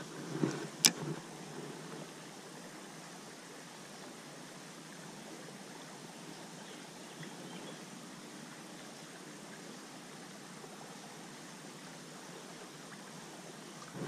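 A few soft handling knocks and one sharp click about a second in, then the steady, even rush of a small flowing creek.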